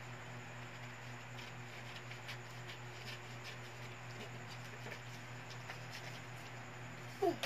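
Small scissors snipping paper in faint, irregular clicks, with paper handling, over a steady low hum. A short squeak near the end.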